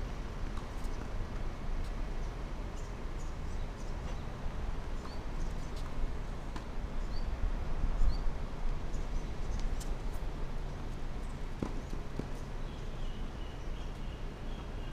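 Steady low wind rumble on the microphone of an outdoor tennis court, with scattered faint knocks and a few short high chirps.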